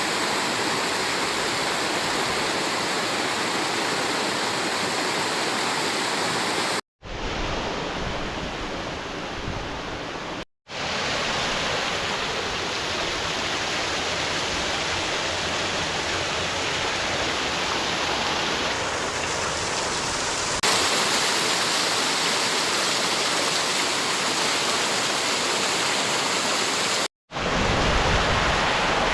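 Dark Hollow Falls, a 70-foot waterfall, rushing steadily. The sound cuts out briefly three times, and it gets a little louder about two-thirds of the way through.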